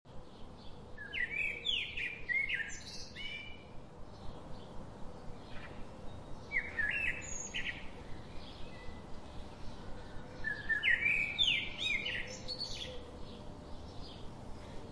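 Birdsong: a bird sings short bursts of quick chirping notes three times, about every four to five seconds.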